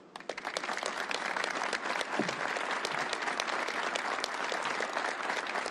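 Audience applauding: many hands clapping together, rising within the first half second and then holding steady.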